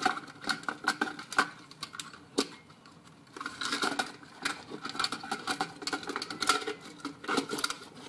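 Wiring and small parts being pulled out of a rotary-dial telephone's base by hand: irregular clicks, taps and scraping of wire, metal and plastic, with the sharpest clicks about a second and a half and two and a half seconds in.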